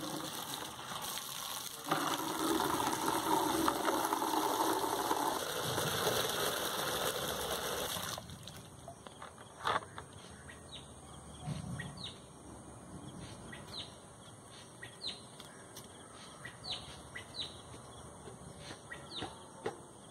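Water from an outdoor tap running into a plastic bucket, cutting off suddenly about eight seconds in. After it stops, a bird gives short, falling chirps again and again.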